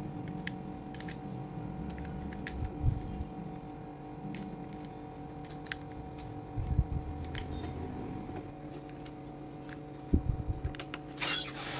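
Light scattered clicks and taps of small plastic model pieces being handled and fitted together, with a few dull thumps and a brief rustle near the end, over a steady low hum.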